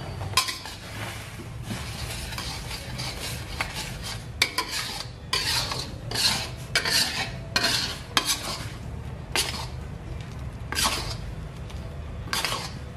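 Metal spatula scraping and stirring a watery chili paste around a stainless steel wok in repeated irregular strokes, the paste bubbling as it cooks down to drive off the added water.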